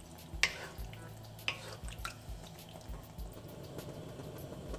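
Marinated chicken sizzling in hot ghee in a kadai, with three short scrapes of a wooden spatula against the pan about half a second, a second and a half and two seconds in.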